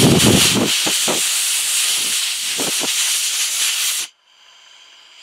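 Compressed-air blow gun hissing steadily as it blows through a lawnmower carburetor's emulsion tube to clear its tiny fuel passages of debris; the blast cuts off suddenly after about four seconds.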